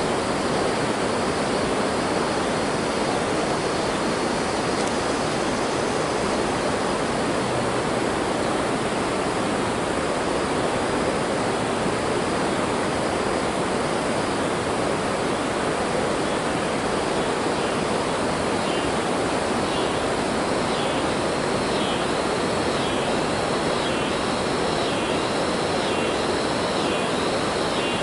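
A steady, even rushing noise throughout. From a bit past halfway, a high-pitched chirping comes in, repeating about once a second.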